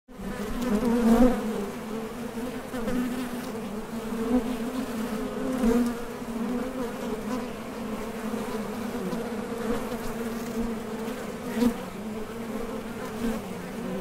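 Honey bees buzzing at the hive entrance as foragers take off and land: a steady hum with a second, higher hum above it. It swells briefly as bees fly close by, loudest about a second in, again just before six seconds and at about eleven and a half seconds.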